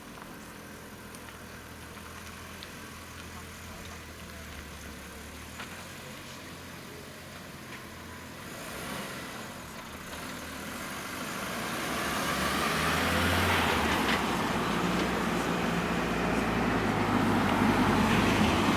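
A motor vehicle on the road nearby, a low engine hum at first, then growing louder from about halfway through as it draws close and stays loud near the end.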